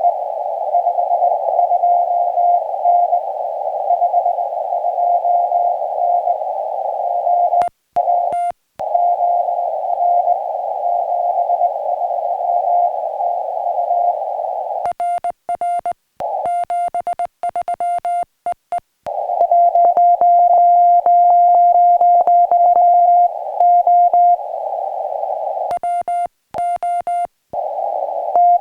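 Morse code (CW) on a portable ham radio: a single-pitch tone keyed in dots and dashes over steady receiver hiss. About halfway through, and again near the end, crisp keyed sidetone cuts in, with the hiss dropping out between the elements, as the operator sends with a paddle.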